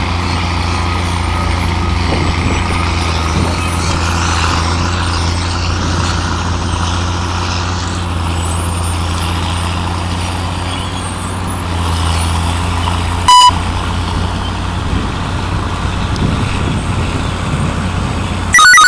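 Heavy truck engine idling steadily, with two short, very loud horn toots: one about two-thirds of the way in and one at the very end.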